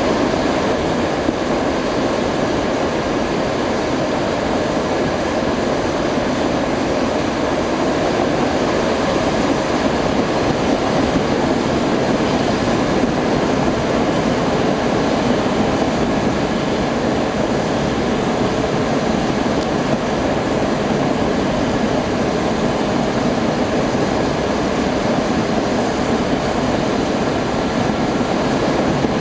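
QED fluidbed furnace running, its aluminum oxide bed fluidized by air at about 730 °C: a steady, even rushing noise with no rhythm or pitch, with its weight in the lower middle of the range.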